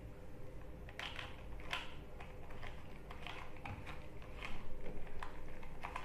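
A 3x3 Rubik's cube being twisted by hand: irregular plastic clicks and clacks from its layers turning, about two a second.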